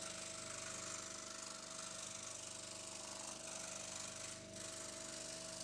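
Proxxon DS 460 scroll saw running, its induction motor humming steadily and the tensioned blade reciprocating with a fast, even pulsing; quiet and low in level.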